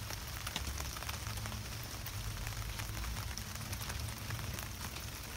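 Light rain pattering steadily on a tarp overhead, with small irregular ticks of drops, while a Ziploc bag's zipper seal is pressed shut with faint clicks.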